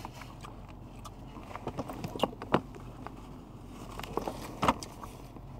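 Soft scattered clicks and rustles over a faint steady hum, a handful about two seconds in and a few more near the end.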